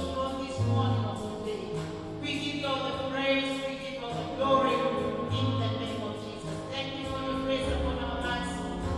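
Gospel worship music: a choir singing sustained chords over a steady bass line.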